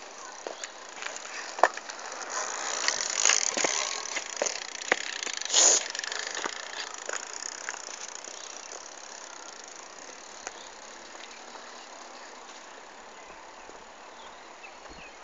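Pedal bicycle rolling close past and away, its freewheel hub ticking and its tyres hissing on the road, with sharp clicks and knocks. It grows loudest about three to six seconds in, then fades.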